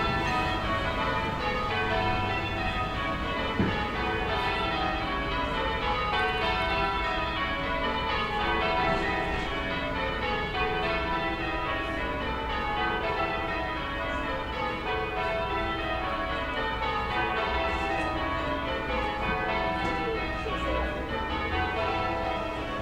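Distant church bells change ringing: a ring of bells struck one after another in continuous repeating rows, with the notes overlapping as they ring on. Low, steady town background rumble lies underneath.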